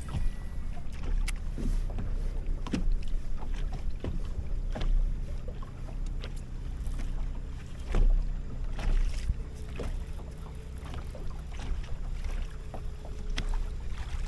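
Ambient noise on a bass boat on the water: a steady low rumble of wind on the microphone, with scattered short knocks and clicks.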